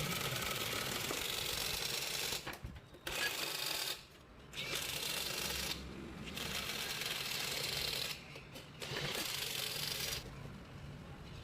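A power tool run in about five bursts of one to two seconds each, with short pauses between, making a rapid rattling noise.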